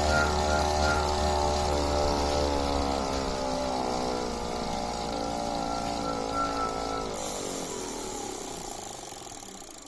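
Tacx Bushido smart trainer's flywheel and brake unit running with a whine of several tones and a high whistle that comes and goes. From about seven seconds in the pitch falls and the sound fades as it spins down. It is one of the annoying noises of a trainer that is new out of the box.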